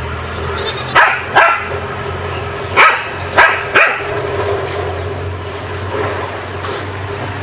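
Dog barking in play, five short barks in the first four seconds (two, then three), over a steady low background hum.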